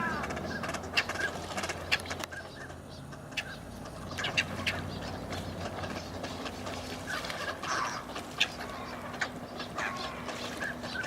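A flock of wintering waterbirds calling, with many short overlapping calls scattered through a steady background hiss.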